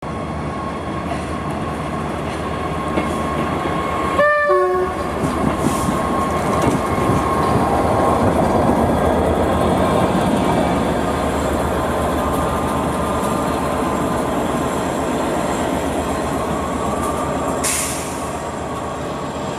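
Class 67 diesel-electric locomotive (two-stroke V12) passing close by while running light, its engine running and its wheels clattering over the rail joints. The sound is loudest as it goes past, midway through. A short two-note horn blast sounds about four seconds in.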